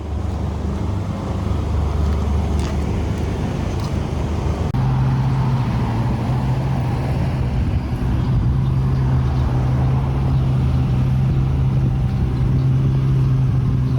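A car engine running steadily under way, with a low hum and road noise. About five seconds in, the engine note changes and settles to a new steady tone.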